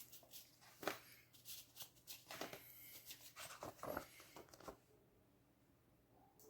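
Paper CD booklet being handled and leafed open: a run of light rustles and small clicks that stops about three-quarters of the way through.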